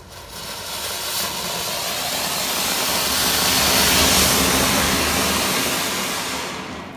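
Ground firework fountain (flowerpot) hissing loudly as it sprays sparks. It swells to a peak midway, then dies away near the end.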